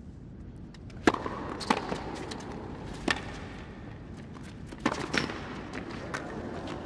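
Tennis rally on a hard court: sharp pops of racquet strikes and ball bounces, the strongest about every two seconds, over a low steady arena hum.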